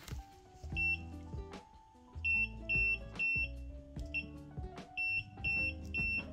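Touch buttons on an ELEGOO Mercury Plus resin wash-and-cure station beeping as they are pressed: about eight short, high electronic beeps, one per press, as the wash timer is stepped up.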